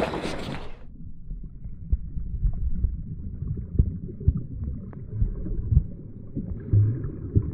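Splashing water and wind for under a second, then the sound cuts to a dull, muffled underwater rumble as the action camera goes below the surface. Scattered soft knocks and faint ticks from water movement and bubbles sound through it.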